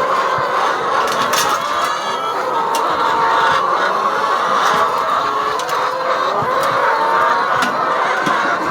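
A large flock of chickens calling all at once, a dense, unbroken clamour of many overlapping clucks and cries.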